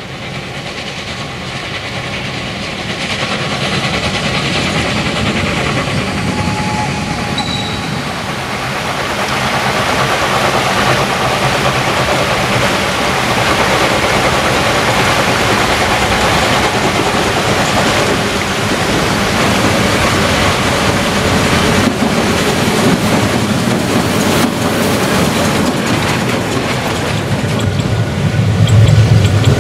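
Narrow-gauge steam train hauled by Saxon steam locomotives working hard, its exhaust and the clatter of coaches on the rails growing louder as it approaches.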